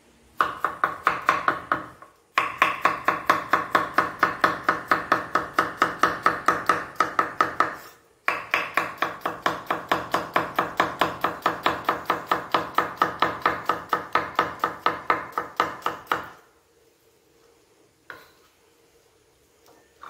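Kitchen knife chopping a vegetable rapidly on a cutting board, about five even strokes a second, in three long runs with short breaks. It stops well before the end, and a few light knocks follow.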